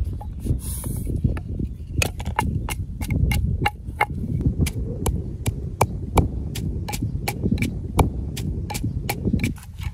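Wooden pestle pounding red chilies in a wooden mortar: a steady run of dull knocks, about three a second, with a short hiss under a second in.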